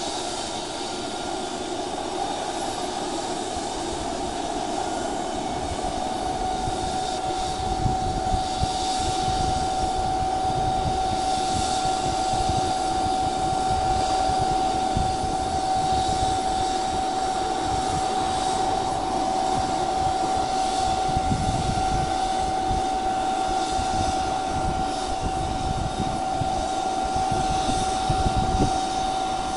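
Air ambulance helicopter running on the ground: a steady high turbine whine over a continuous rushing noise.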